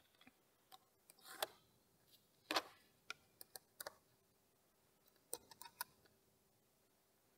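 Light, scattered clicks and taps of a small hand tool against the plastic and metal parts of an RC touring car as the rear toe link is adjusted, several in quick succession about three to four seconds in and again a little past five seconds.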